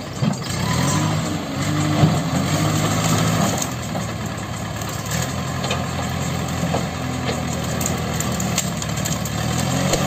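JCB backhoe loader's diesel engine running while the backhoe arm is worked. The engine note rises and gets louder about a second in, then settles a little lower and steady after about three and a half seconds.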